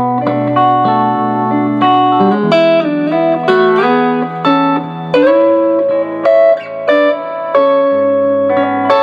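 Road Worn Telecaster electric guitar fitted with a Vibra-Mate Bigsby vibrato, played: picked chords and melody notes changing about once a second, with a few notes gliding in pitch.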